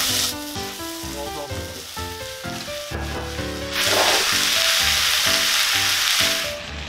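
Chopped carrots, onion and potato sizzling in butter in a hot cast-iron Dutch oven. The sizzle is loud as they go in, drops back, then flares again from about four seconds in as they are stirred with tongs, dying down just before the end.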